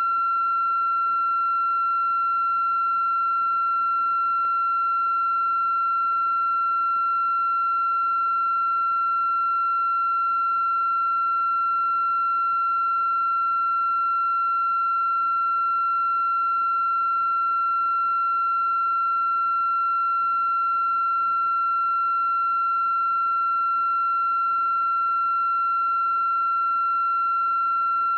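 A steady, unbroken high-pitched electronic tone with fainter higher overtones and a soft hiss beneath.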